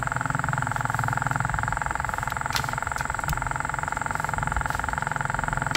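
A steady mechanical hum with a whine, like a small electric motor running without change, with a faint click about halfway through.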